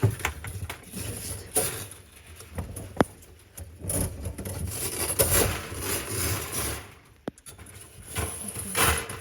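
Scraping and rattling of the coil spring being worked off a Grohe pull-out faucet hose by hand, with two sharp clicks a few seconds apart.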